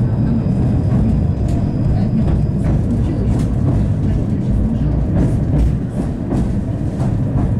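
71-931M "Vityaz-Moscow" low-floor tram running along the track, heard on board: a steady low rumble with scattered clicks and knocks from the wheels, and a thin high whine during the first couple of seconds.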